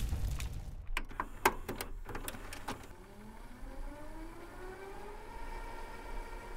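A few sharp clicks in the first three seconds, then a whir that rises in pitch, several tones gliding up together and levelling off into a steady hum.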